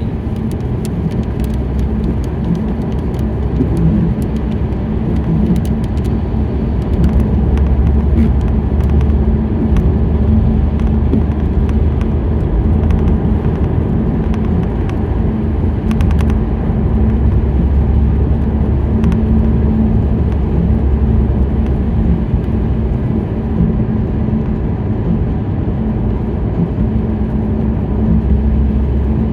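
Steady low road rumble and hum heard inside a car driving on a wet road in the rain, with scattered light ticks in the first half.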